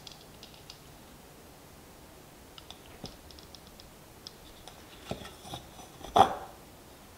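Light metallic clicks and ticks of a backpacking pot's folding wire handle as the pot is turned in the hand, then the pot's metal 3D-printed heat-exchanger base set down on a wooden cutting board with a knock about six seconds in, the loudest sound, ringing briefly.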